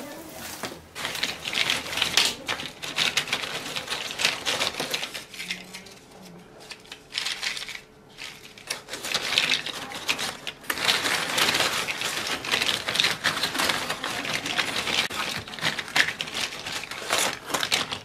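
Dry cassia cinnamon sticks clattering and rattling against each other as gloved hands rummage through them in a cardboard box. The clatter comes in two busy stretches with a quieter pause in the middle.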